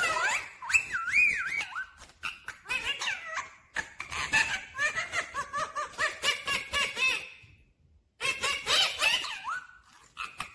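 Rose-ringed parakeet (Indian ringneck) chattering in a run of squeaky, gliding whistles and clicks. It stops briefly about eight seconds in, then starts again.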